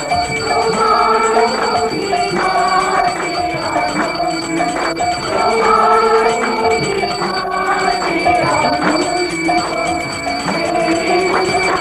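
A woman singing a devotional song into a microphone, accompanied by regular strokes of hand percussion.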